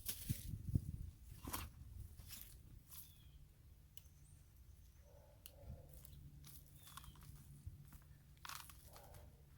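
Hands rustling and crunching through soil and old potato plants, pulling tubers free: a run of scattered short crackles, loudest in the first second.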